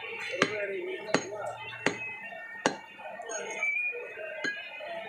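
A long butcher's knife chopping beef fat on a wooden chopping block. Four sharp chops come about three-quarters of a second apart, and a lighter one comes near the end, over background voices.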